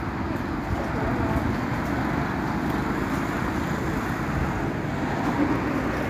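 Steady road traffic noise: a continuous low rumble of passing vehicles.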